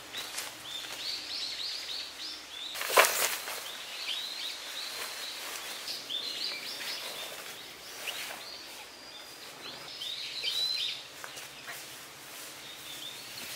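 Small birds chirping repeatedly in short, high notes, with one sharp knock about three seconds in.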